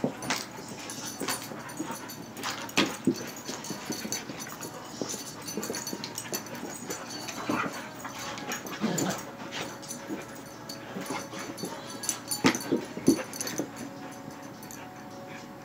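German Shepherd puppies play-fighting on carpet: scuffling and knocks from their bodies and paws at irregular moments, with a few short dog whimpers now and then.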